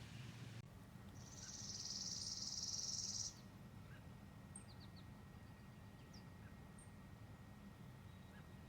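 Woodland ambience: a high, buzzing trill lasting about two seconds, then a few faint, short bird chirps.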